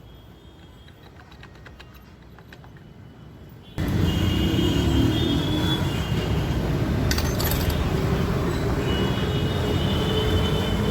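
A few faint metallic clicks, then, about four seconds in, the loud run of a Royal Enfield Electra 350 single-cylinder engine with its clutch cover off, with a metallic clatter. The clatter is the sign of a sprag clutch gear with worn bearing play knocking against the primary chain's front sprocket.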